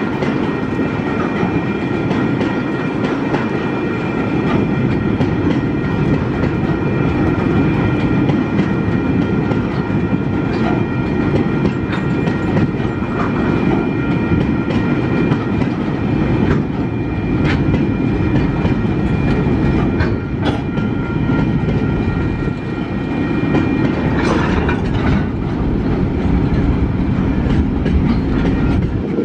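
Empty flat wagons of a Tasrail freight train rolling past close by. There is a loud, steady rumble with wheels clacking over rail joints, and steady high ringing tones over it that fade out near the end.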